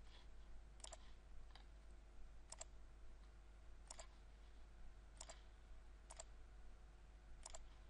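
Computer mouse button clicking about six times at uneven intervals, each click a quick press and release, over a faint steady hum.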